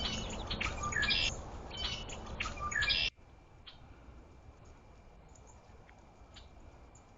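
A flock of small birds at a feeder chirping busily in quick, overlapping high calls. The chirping cuts off abruptly about three seconds in, leaving only a few faint chirps.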